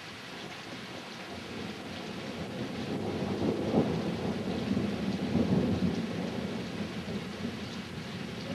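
Thunder rumbling over steady rain: a long roll that builds over the first few seconds, is loudest about four seconds in, then eases off.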